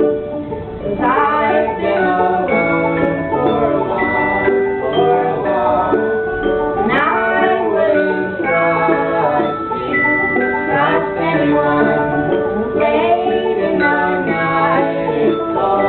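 Live acoustic song: ukulele-led band music with a voice singing over it, steady and continuous.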